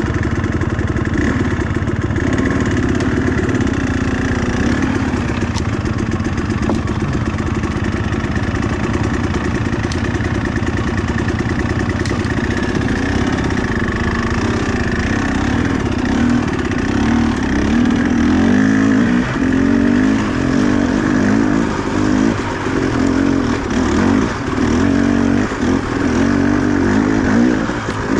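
Two-stroke engine running loud and fairly steady, then its revs rise and fall again and again through the second half.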